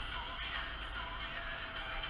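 Background music with a wavering melody, over a steady low rumble from the car driving.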